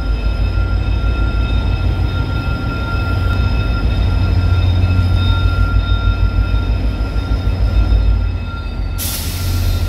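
VIA Rail F40PH-2 diesel locomotive's EMD two-stroke engine rumbling as it pulls its train slowly past, with steady whining tones over the rumble; the rumble is loudest about eight seconds in as the locomotive goes by, then eases. A sudden loud hiss starts near the end.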